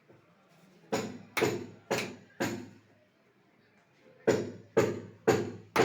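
Hammer blows, about two a second, in two runs of four separated by a pause of nearly two seconds, each a sharp knock with a short ring.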